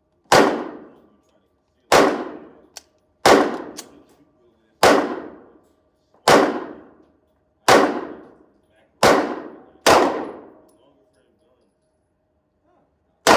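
Pistol shots fired one at a time at a steady pace, about one every second and a half, eight in a row. Each report is sharp, with a ringing tail. After a pause of about three seconds, one more shot comes at the end.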